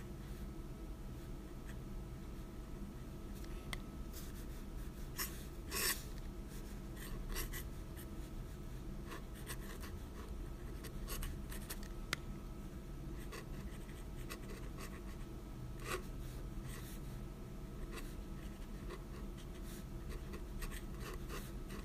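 Steel nib of a dip pen scratching across paper in short, irregular ink strokes, the loudest about six seconds in.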